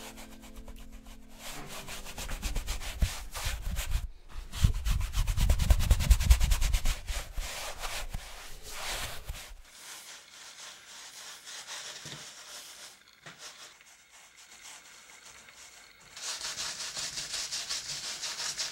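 Wide flat bristle paintbrush scrubbing paint across a canvas in repeated rubbing strokes, heaviest in the first half, sparse and faint in the middle, then a brisk, hissing scrub near the end.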